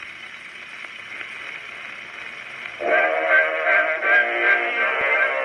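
Edison cylinder phonograph playing a four-minute cylinder record: a steady hiss of surface noise from the lead-in groove, then the recorded music comes in suddenly about three seconds in.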